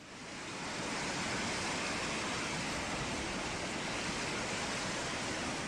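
Fast-flowing flash-flood water rushing steadily. The noise swells in over about the first second and eases off near the end.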